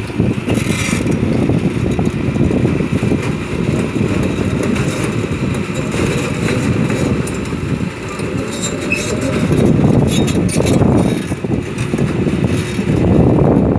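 Cat 320D crawler excavator's diesel engine working under load as the machine drives its steel tracks across a lowbed trailer, a heavy rumble that swells twice near the end.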